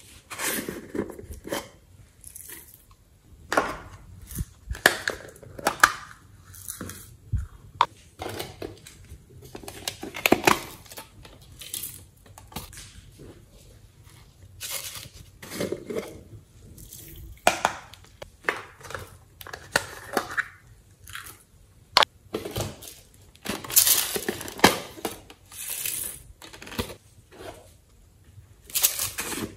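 Small plastic containers handled and opened one after another, with irregular clicks, scrapes and crinkles of plastic as lids come off and the contents are tipped out.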